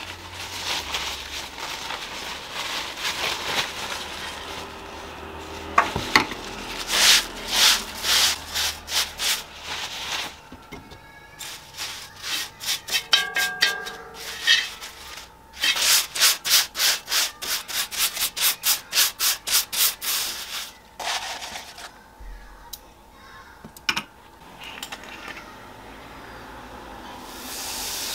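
Paper towel held in metal tongs scrubbed back and forth over a cast-iron griddle, a dry scratchy rubbing in quick strokes, about three a second at its busiest. Near the end a hiss rises as liquid starts to sizzle on the hot pan.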